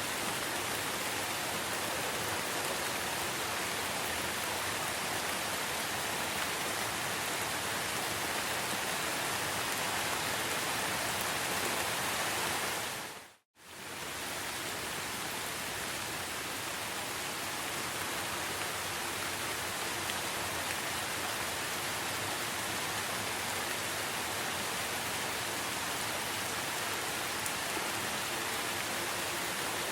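Steady rain falling in an even hiss, with a brief fade to silence and back about thirteen seconds in, where the recording loops.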